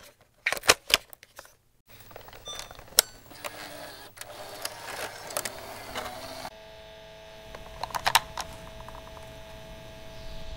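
Clicks and crackle, then a steady electrical hum from about six and a half seconds in, with a quick run of clicks near eight seconds.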